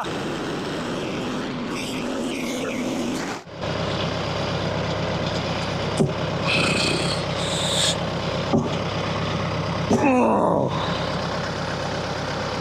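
Portable sawmill's gas engine running steadily, dropping out for a moment about three and a half seconds in and returning as a deeper, even hum. There are a few sharp clicks, and a short falling whine about ten seconds in.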